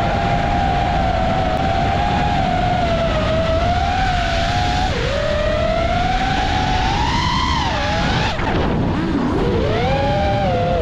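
FPV quadcopter motors and propellers whining, the pitch wavering and gliding up and down with the throttle, with a sharp drop and climb about eight seconds in, over a steady rush of wind noise.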